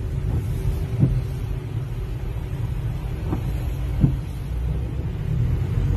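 Steady low rumble inside a car's cabin as it drives along a flooded road, with three short dull knocks about one, three and four seconds in.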